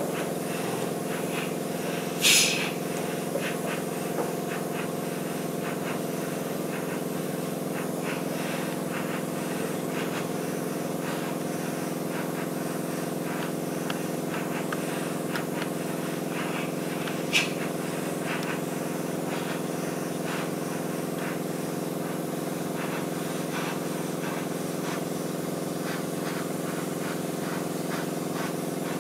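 Airbrush compressor running with a steady hum while the airbrush sprays paint with a light hiss. Two short, louder bursts of air, one about two seconds in and one just past the middle.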